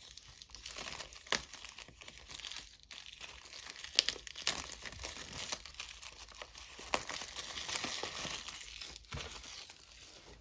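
Product packaging being unwrapped by hand: wrapping crinkling and tearing, with several sharp clicks along the way.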